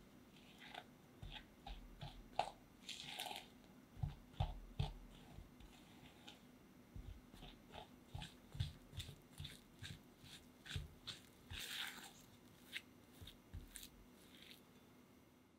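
Silicone spatula mixing flour into soft creamed butter in a glass bowl: irregular soft scrapes and light taps of the spatula against the glass, with a few dull thumps.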